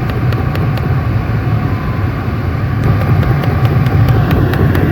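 Tata Nexon's recirculation (refresh mode) flap actuator clicking over the steady hum of the running engine and AC blower, a rapid tick-tick at about four clicks a second that later comes more irregularly. The clicking is the sign of a faulty refresh-mode actuator, a common failure on the Nexon.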